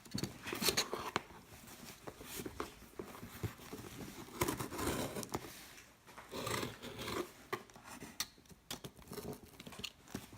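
Hands working at a speedcube's packaging: plastic and cardboard rustling and crinkling, with scattered irregular clicks and taps as the box is pried open.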